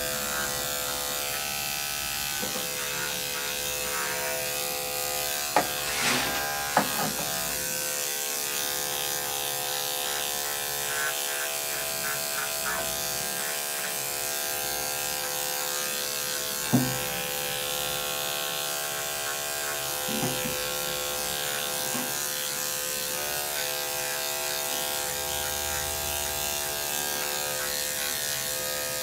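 Corded electric dog-grooming clippers running with a steady buzz as they shave matted hair off a dog's side. A few short knocks sound over the buzz, the loudest about two-thirds of the way through.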